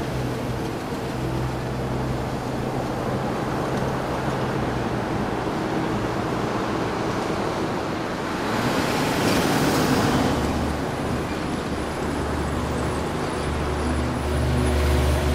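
City traffic ambience: a steady wash of road noise with a low hum. The noise swells for about two seconds around nine seconds in, and a low rumble grows near the end.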